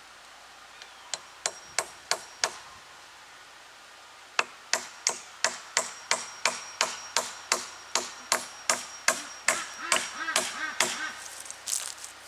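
Hammer blows on a wooden pole fence rail with a faint metallic ring, about three a second: a short run of five blows, a pause of about two seconds, then a long steady run of some twenty-five blows, typical of driving a nail.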